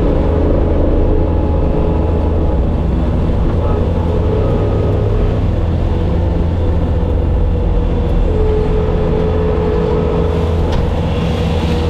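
Bobcat skid steer loader's diesel engine running steadily under work, with a couple of sharp knocks near the end.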